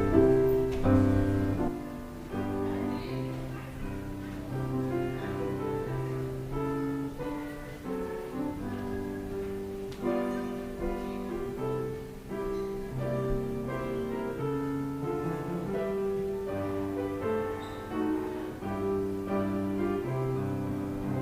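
Piano playing soft, slow chords with a moving bass line.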